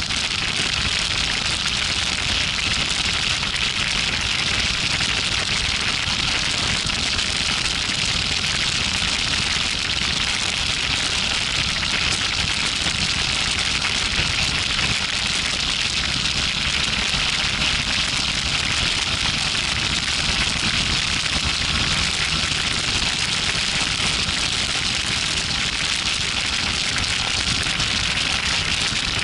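Steady rush of wind and road noise on a motorcycle-mounted camera at highway speed: an even hiss with a low rumble underneath.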